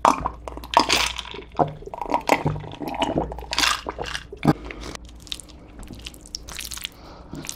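A person gulping water from a glass, close to the microphone, in a run of short wet swallowing sounds; after about four and a half seconds it goes quieter.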